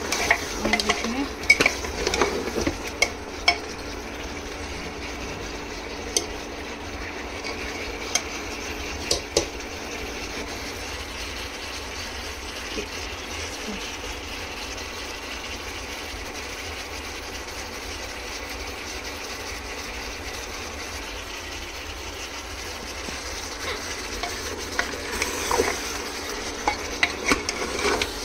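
Mutton sizzling as it fries in oil in a pot, being cooked down until the oil separates. A spatula stirs and knocks against the pot in the first few seconds and again near the end, with a few single knocks in between over a steady sizzle.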